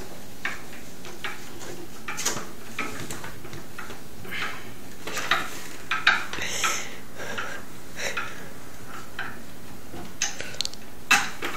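Metal pots and pans clinking and clanking as they are handled in an open kitchen cabinet: a scatter of short, light knocks, a little busier in the middle.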